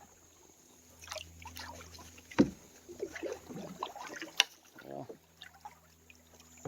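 Canoe paddling on a river: paddle strokes and water, with two sharp knocks against the canoe about two seconds apart.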